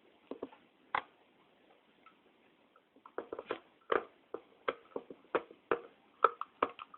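Irregular sharp clicks and taps from a screwdriver and small metal parts being handled while a hard drive is screwed back together: a few in the first second, then a quick uneven run from about three seconds in.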